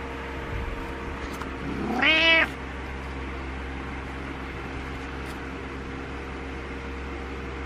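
Domestic cat meowing once, briefly, about two seconds in, the pitch rising and then falling. A steady low hum runs underneath.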